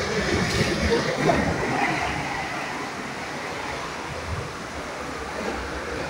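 Water rushing and churning around a river rapids ride raft, a steady rumbling wash that eases slightly partway through.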